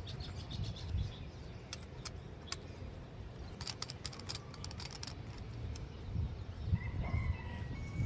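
Light clicks and taps of metal dagger fittings being handled and slid together, over a low rumble, with a short bird call near the end.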